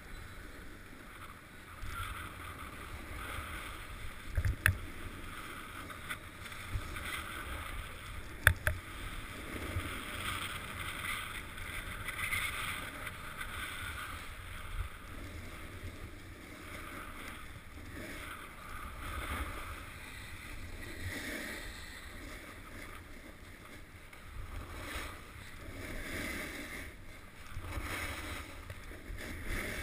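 Skis hissing and scraping over groomed snow during a downhill run, the swish swelling and fading with each turn, with wind rumbling on the microphone. Two sharp knocks stand out, about four and a half and eight and a half seconds in.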